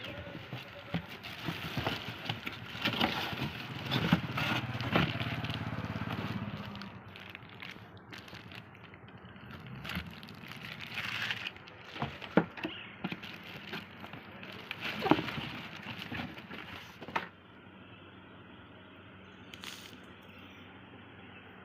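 Scattered clicks, knocks and crackles of something being handled, with a low hum from about two to seven seconds in; the last few seconds are only a faint steady hiss.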